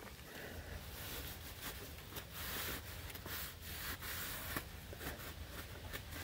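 Irregular rubbing and scuffing sounds, fairly quiet, with no engine running.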